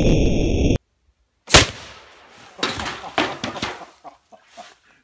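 Shot from a large homemade compressed-air arrow launcher: a loud rush of escaping air that cuts off abruptly just under a second in, then a single sharp blast as the rubber-kicked ball valve dumps the air chamber, followed by a run of knocks and rattles and a few faint clicks.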